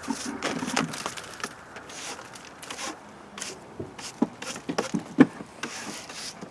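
Wooden beehive frames and boxes being handled: a run of scattered wooden knocks, clicks and scrapes, the loudest knock about five seconds in.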